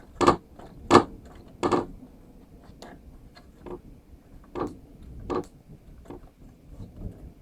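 Carburetor being wiggled loose from a PowerMore 140cc mower engine: a string of sharp clicks and knocks of the parts. Three louder ones come in the first two seconds, then fainter ones about once a second.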